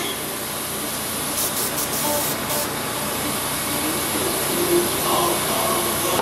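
Steady hiss of compressed air from an airbrush, with a few brief high rustles in the first half.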